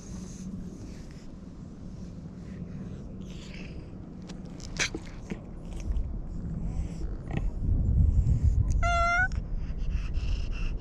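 Tabby-and-white cat giving one short meow about nine seconds in. Low rumbling noise grows louder over the second half.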